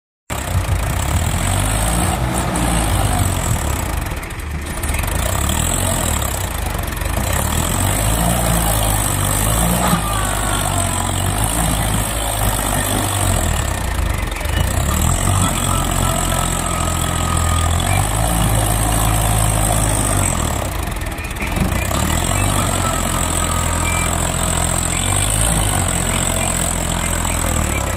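Swaraj 855 FE tractor's three-cylinder diesel engine running hard under load as it pulls a heavily loaded trailer through mud, its pitch rising and falling; the revs dip briefly twice, a few seconds in and again about three-quarters of the way through.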